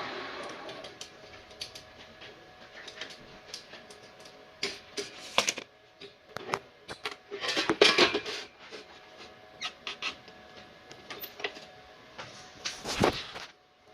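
Scattered metal clanks, taps and knocks from steel hollow section being handled and clamped on a metal cut-off saw between cuts, with louder clusters about five, eight and thirteen seconds in. In the first second the noise of the machine before it fades away.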